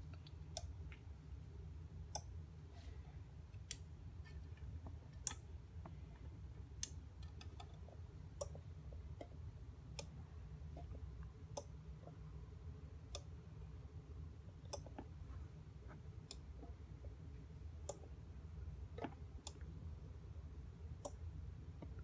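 Relays on a four-channel relay module clicking on and off at a regular pace, about one click every second and a half. The clicks come from the dishwasher controller's hardware test switching its heater and wash-pump outputs in turn. A faint steady low hum runs underneath.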